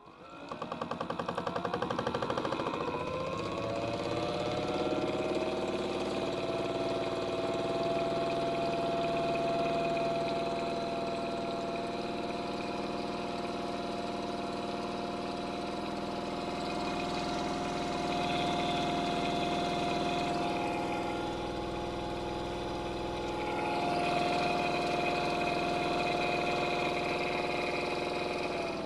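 Small electric motor of a modified Miele W1 toy washing machine starting up and winding up in pitch over the first few seconds, then running steadily with a whine.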